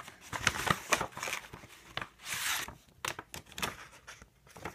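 Paper rustling and crinkling as a glossy catalog and stickers are handled, in a string of short crackles with one longer sliding rustle about halfway through.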